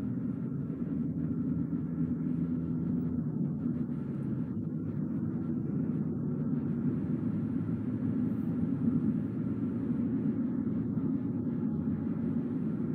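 A car driving at a steady pace: an even, low rumble of road and engine noise with no sudden events.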